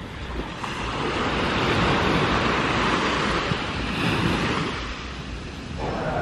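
Ocean surf washing onto a beach: a broad rushing noise that swells about a second in and eases off near the end, with wind rumbling on the microphone.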